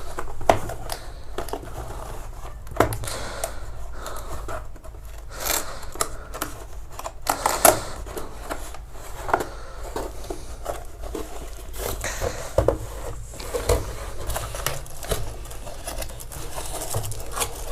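Cardboard box and packaging being handled as a keyboard is pulled out of it: irregular rustling, scraping and small knocks.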